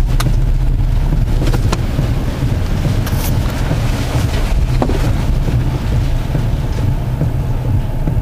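Violent storm wind buffeting the car and microphone: a loud, steady low rumble, with a few sharp knocks against the car.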